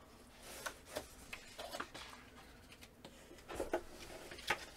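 Sheets of heat transfer vinyl being handled and shuffled: scattered light clicks and rustles, the sharpest about four and a half seconds in.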